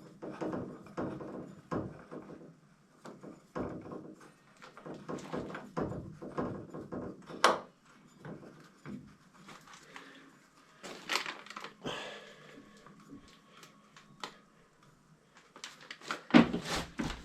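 Scattered knocks, clicks and rustling of hands and a wrench working on copper pipe fittings, with a sharp click about seven and a half seconds in and louder knocks near the end.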